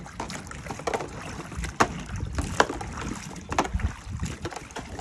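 Hands stirring and rinsing cut cardoon stalks in a plastic basin of water: sloshing and splashing, with scattered knocks of the stalks against the basin. Wind rumbles on the microphone underneath.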